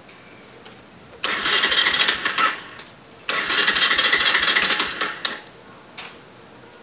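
Motorcycle engine cranked twice on the electric starter, for about a second and a half and then about two seconds, without catching. The bike has no ignition current, which the mechanic traces to a busted pulser coil.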